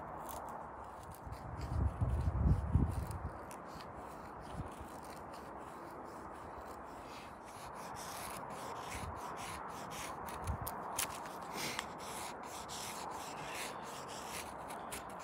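Small folding knife shaving curls from a wooden stick: repeated scraping cuts, coming quickly and regularly from about halfway through. A brief low rumble about two seconds in is the loudest sound.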